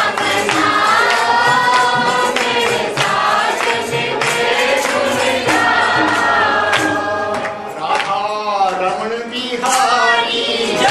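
A group of devotees singing a Hindi devotional kirtan together, with hand claps keeping the beat.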